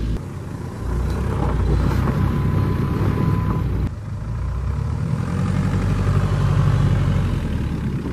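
Jeep Liberty CRD's 2.8-litre four-cylinder turbodiesel running hard in low-range four-wheel drive as the stuck Jeep is rocked back and forth in packed, frozen snow. The engine note drops briefly twice, about half a second in and about four seconds in.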